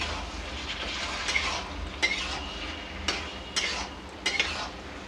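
Steel spatula stirring paneer and thick masala in a steel kadai over a steady sizzle, with about five sharp scraping strokes of metal against the pan.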